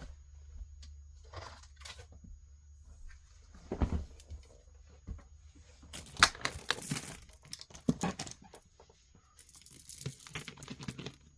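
Irregular rustling, crinkling and light clicks of things being handled on a tabletop, busier in two stretches in the second half.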